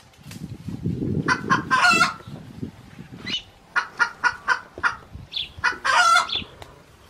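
Wild chicken clucking and cackling: a longer loud cackle about two seconds in and another near the end, with a quick run of about six clucks between them. Dry leaves and brush rustle low underneath during the first half.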